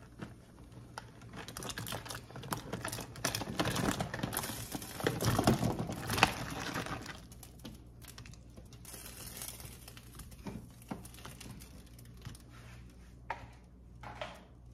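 Dry pasta noodles being poured into a pot of boiling water: a dense rattle of many small clicks, loudest about four to seven seconds in, then thinning to scattered clicks and a few knocks.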